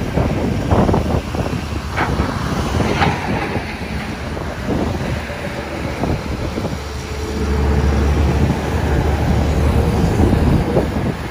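XCMG XE215C crawler excavator working: its diesel engine runs steadily with a few sharp metal clanks in the first three seconds. From about seven seconds the engine runs louder under hydraulic load, with a steady whine.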